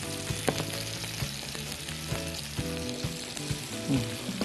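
Sliced onions sizzling in olive oil in a nonstick frying pan while a silicone spatula stirs them, knocking against the pan now and then. Faint background music runs underneath.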